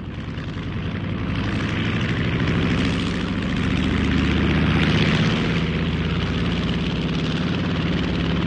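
Propeller plane engine running steadily with a fast, even throb, swelling louder over the first couple of seconds and then holding level.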